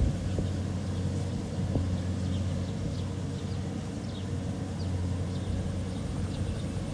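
Kubota DC70 combine harvester's diesel engine running steadily under harvesting load, a constant low hum. Faint high chirps sit above it.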